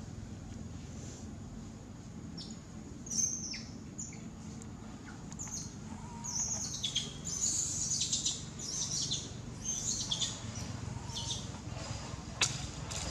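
Many short, high-pitched chirping calls, several sweeping downward in pitch, coming thickest in the middle stretch over a steady low rumble, with a sharp click near the end.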